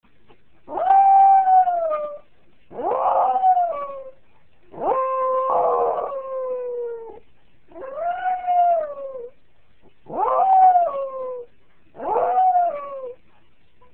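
Jack Russell Terrier howling six times, long pitched cries that rise and then fall away at the end, the longest about two seconds. It is distress crying at being left by its person.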